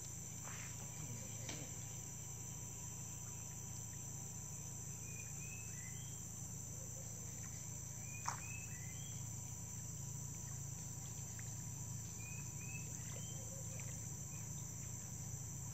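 Evening insect chorus: a steady high-pitched drone of crickets, with short rising chirps in small groups every few seconds and a single sharp click about eight seconds in.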